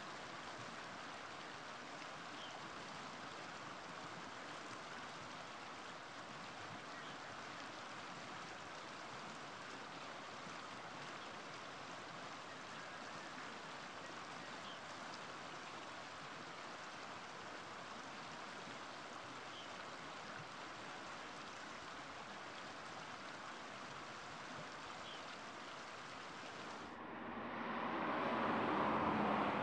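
Steady rushing of a small, fast-flowing river, with a few faint brief chirps over it. Near the end the rushing gives way to a louder, lower noise that swells up.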